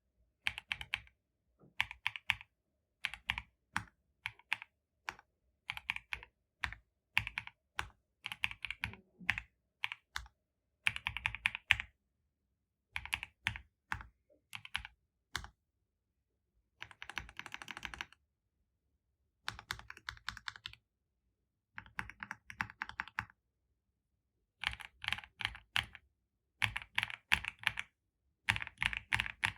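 GMK26 gasket-mounted mechanical macropad with linear switches and thick PBT Cherry-profile keycaps being typed on, keys clacking in quick runs of presses with short pauses between them.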